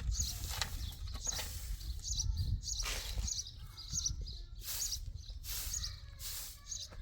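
A small bird chirping repeatedly in short high notes, about one every half second to a second, over a steady low rumble and intermittent rustling noise.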